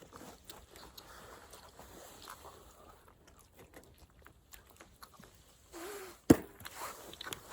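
A person eating: soft chewing with small scattered clicks and taps, and one sharp click a little past six seconds in that is the loudest sound.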